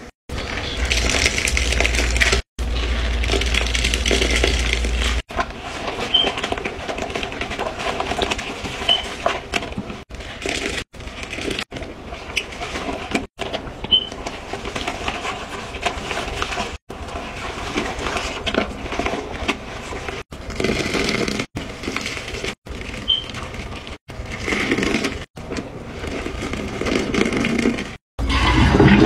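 Rubber-gloved hand scrubbing a toilet bowl with a sponge through powdered cleanser and foaming cleaner. The scrubbing noise stops and starts abruptly many times, every second or few.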